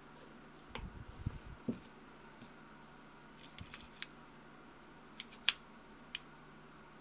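Steel parts of a Mossberg 183T .410 shotgun bolt being fitted together by hand. Soft knocks of handling in the first two seconds, a brief metallic rattle near four seconds, then a loud click at about five and a half seconds with a smaller click half a second later.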